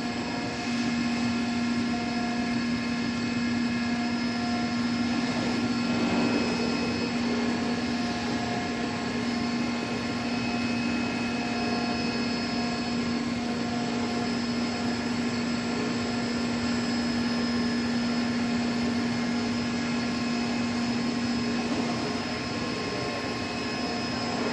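Digital flatbed CNC fabric cutting machine running: a steady hum over an even rushing noise.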